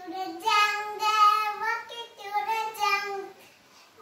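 A young girl singing a nursery rhyme without accompaniment, in short held phrases, with a brief pause near the end.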